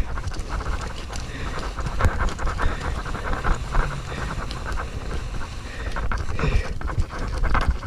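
A tree climber breathing hard as he makes his way down the tree, over a busy rustle and rattle of gear and handling.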